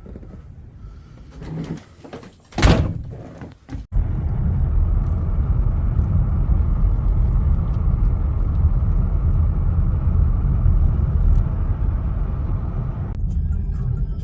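A loud sudden knock or thud a few seconds in, then an abrupt switch to a loud, steady low rumble.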